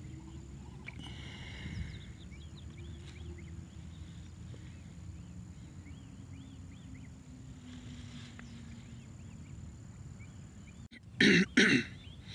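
A low steady rumble with faint, repeated chirping calls, then near the end two loud coughs close to the microphone, about half a second apart, and a smaller one after them.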